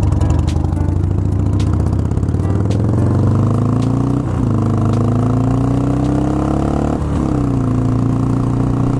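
Harley-Davidson Sportster 883's air-cooled V-twin engine under way. It runs steady, then the revs climb as the bike accelerates, drop sharply about four seconds in and again about seven seconds in as it shifts up, and settle into a steady run.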